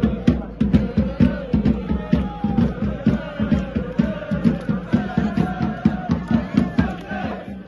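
Voices singing a chant over a quick, steady drumbeat, the beat fading a little near the end.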